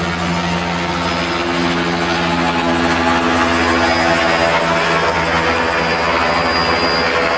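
Helicopter hovering overhead: a steady drone of engine and rotor over a constant roar, heard through an old camcorder's built-in microphone.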